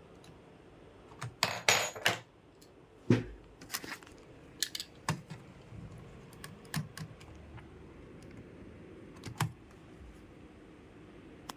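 Scattered plastic clicks and clacks of hands working on a computer. A cluster of louder clacks comes in the first few seconds, then sparser single clicks follow.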